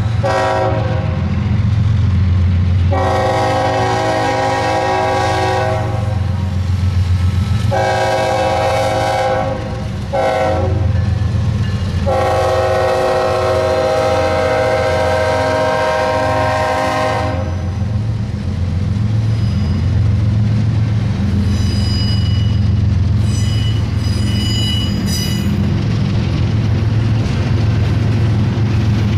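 A BNSF freight train's diesel locomotives run past with a steady low rumble while the lead locomotive's air horn sounds a chord in a long, long, short, long sequence, the standard grade-crossing signal. Double-stack container cars then roll by with a few brief high-pitched squeals near the end.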